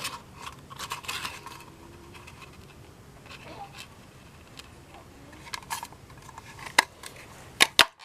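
Cardstock rustling and scraping as it is handled, then a paper craft punch clicking sharply three times near the end, the last two close together.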